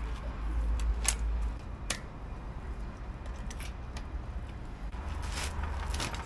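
Metal clicks and light rattles from an upside-down bicycle as its flat front wheel is handled and pulled from the fork, a few separate clicks over a low rumble.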